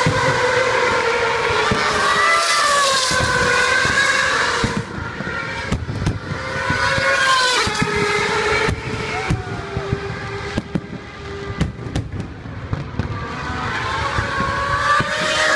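Formula 1 cars' 2.4-litre V8 engines screaming past at high revs, pitch sliding as they go by. About five seconds in this gives way to fireworks: a string of sharp bangs and crackles, with high whining tones coming back near the end.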